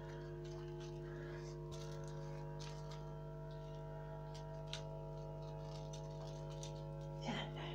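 A steady low hum made of several even, unchanging tones, with light scattered ticks and taps from kittens moving about and playing on the floor.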